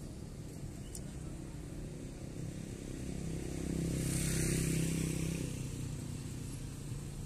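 A motorcycle passes along the street, its engine growing louder to a peak about four to five seconds in and then fading, over a steady low hum of city traffic.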